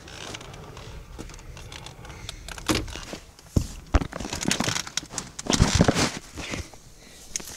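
Clothes and belongings rustling and crinkling, with irregular knocks and bumps, as someone shifts about and tries to settle in a cramped, full closet. The rustling and knocks are loudest about three-quarters of the way in.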